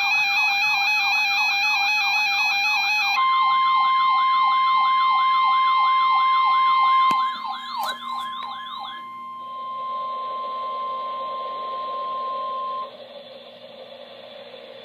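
Emergency alert tones: a fast, repeating electronic warble like a siren, joined about three seconds in by the steady 1050 Hz NOAA Weather Radio alert tone, which holds until about 13 s. The warble stops about 9 s in, and radio static hiss carries on under the tone and after it.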